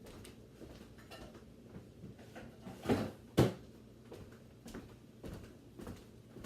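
Faint kitchen handling noises with two sharp knocks about three seconds in, half a second apart, like a cupboard door or a pot being set down.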